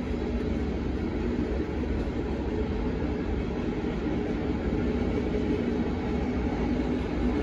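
Freight train cars rolling past at a steady speed: a continuous rumble of steel wheels on the rails.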